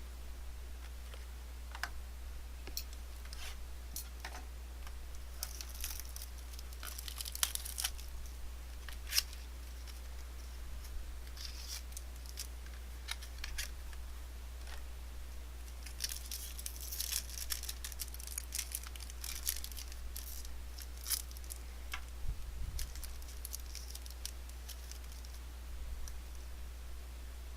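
Hands handling trading cards and their packaging: scattered rustles, sharp crinkles and tearing scrapes, in clusters around 6 to 8 seconds in and again around 16 to 20 seconds in, over a steady low electrical hum.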